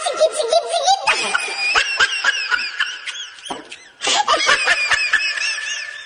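Laughter sound effects: high-pitched peals of laughter in quick pulses, cut abruptly to a different laugh about a second in and again at about four seconds.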